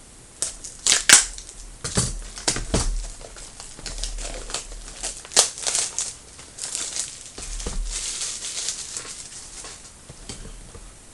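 Plastic wrapping on a trading-card box or packs being torn and crumpled: a run of irregular sharp crinkles and crackles that stops shortly before the end.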